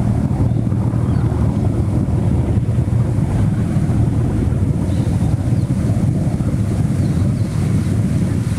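Steady low rushing of an artificial whirlpool churning in a circular pool of black water, mixed with wind buffeting the microphone.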